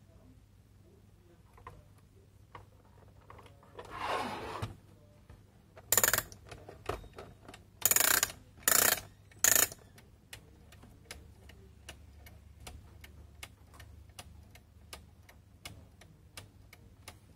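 Plastic gear-clock kit being handled and set up: rubbing, then a few loud plastic knocks and clicks. From about ten seconds in, its pendulum escapement ticks steadily.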